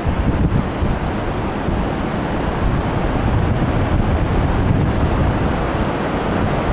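Steady rushing noise from wind buffeting the microphone, mixed with a fast mountain river in full flow.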